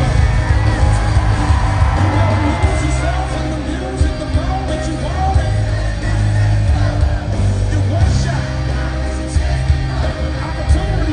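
Live band music played loud through an arena PA, with a heavy pulsing bass and drums under a male lead vocal, and the crowd yelling and whooping along, heard from within the audience.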